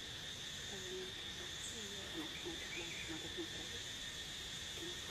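Steady, high-pitched chirring of insects, with faint wavering sounds lower down.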